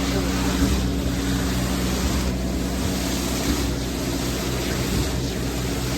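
Concrete pump truck running under load while pumping concrete: a steady engine drone with a regular pulse about every second and a half from the pump's strokes.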